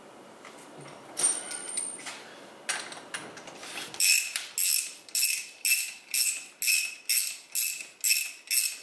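Ratchet wrench clicking in regular back-strokes, about two a second, tightening the top cap onto a motorcycle fork tube. It starts about four seconds in, after a few lighter clicks and a short metallic scrape.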